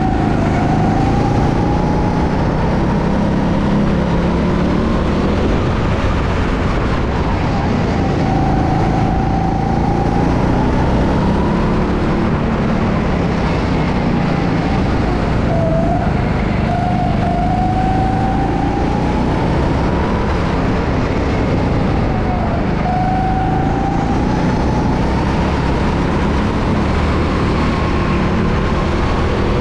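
A go-kart's motor driving laps. Its whine climbs slowly and then drops sharply every few seconds as the kart speeds up and slows again, over a steady low rumble.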